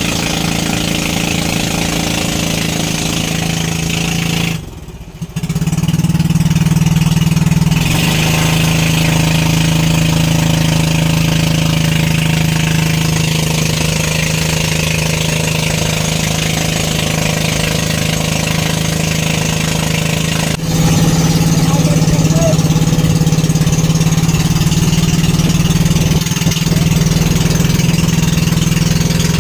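Engine of a motorized outrigger boat running steadily at cruising speed, with water rushing and splashing along the hull and bamboo outrigger floats. The sound dips briefly about five seconds in.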